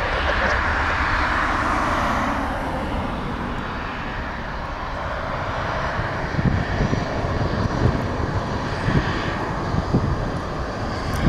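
Airbus A330-300 jet engines at takeoff thrust as the airliner rolls and climbs away: a loud rushing roar at first, then a low crackling rumble from about six seconds in.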